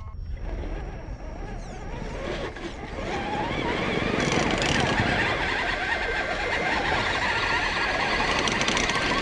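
Electric motors and gears of radio-controlled scale trucks whining under load as their tyres spin and churn dry sand, growing louder about three seconds in.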